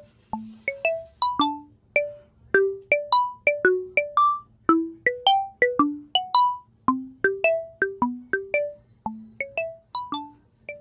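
Background music: a music-box melody of single plucked notes that ring and fade, about three or four a second.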